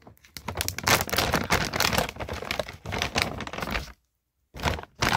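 Close handling noise from a phone being picked up and set in place: dense rustling and crinkling with sharp clicks, rubbing right at its microphone. The sound drops out completely for about half a second near the end.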